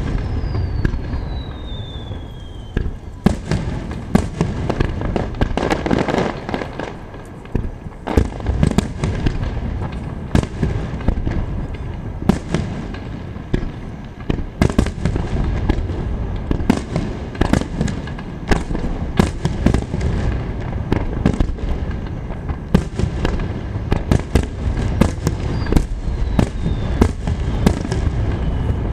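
Digital starmine firework barrage: a computer-timed rapid-fire sequence of shells bursting in quick, irregular bangs over a continuous rumble. A whistle falling in pitch sounds about a second in, and a fainter one near the end.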